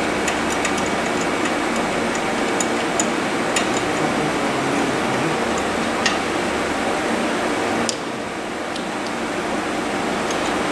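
LarsLap Model C1 portable valve grinder running steadily, lapping the gasket seating surface inside a pressure safety valve's bore, with scattered light metallic ticks; it turns a little quieter about eight seconds in.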